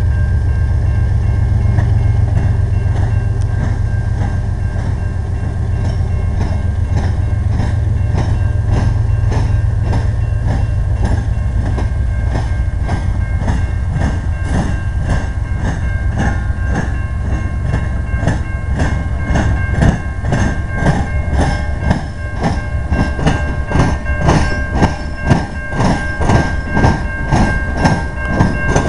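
CN diesel freight locomotives rumble past at close range, their engines loud and low. From about twenty seconds in, the rumble gives way to a regular clickety-clack of wheels striking rail joints as the train rolls through the junction, with a thin steady whine underneath.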